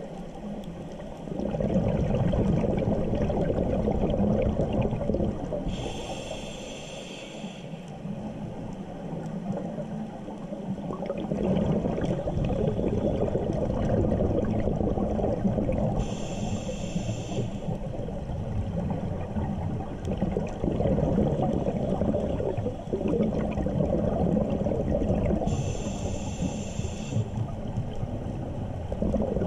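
Scuba diver breathing through a demand regulator underwater: a hissing inhale three times, about ten seconds apart, each followed by a long bubbling rumble of exhaled air.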